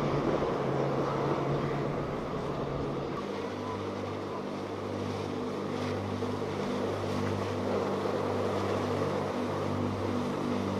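Motorboat engines running at speed. First a center-console boat's four outboard motors, then, after a change about three seconds in, a sportfishing boat's engines in a steady low drone, over a hiss of spray and wake.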